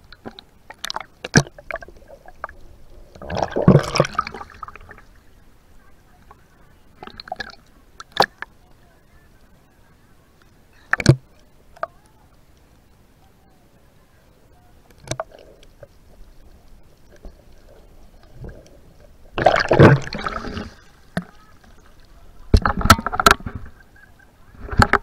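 Sea water splashing and sloshing against a handheld action camera held at the surface, with irregular sharp knocks and short bursts of splashing, the biggest about four seconds in and about twenty seconds in.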